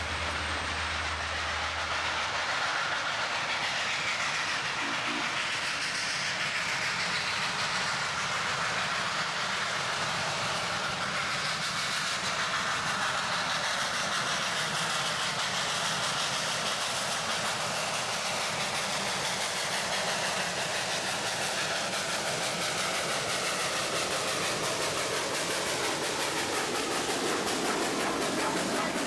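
Steam locomotive Western Maryland 734, a 1916 Baldwin-built 2-8-0 Consolidation, running past close by, its steam hissing and its wheels on the rails making a steady, continuous noise.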